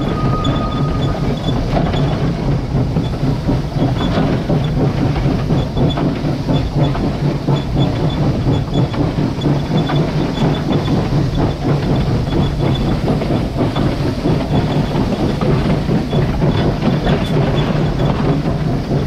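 Pennsylvania Railroad #643, an 0-6-0 steam locomotive, rolling along the track, heard right beside its running gear. A steady close rumble of wheels on rail, with clickety-clack and some hiss.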